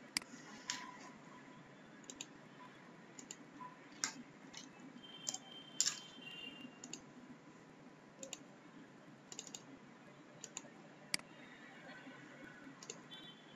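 About a dozen sharp clicks from computer mouse and keyboard use, coming at irregular intervals over a faint steady low hum.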